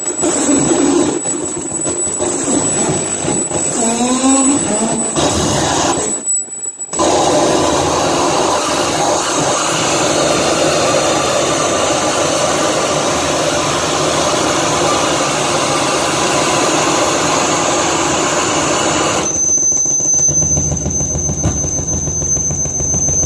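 Harsh noise electronics played live, loud: a dense wall of distorted static and feedback with a steady high whine. A few rising squeals come about four seconds in, the sound drops out briefly around six seconds, and near the end it turns darker and heavier in the bass under a new high whine.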